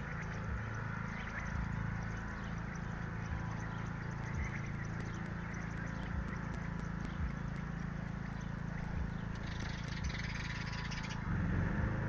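Faint, short bird chirps scattered over a steady low hum, with a denser patch of high chirping about three-quarters of the way in.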